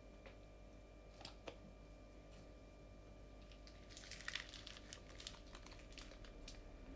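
Faint handling sounds: a few light clicks, then a brief crinkling about four seconds in.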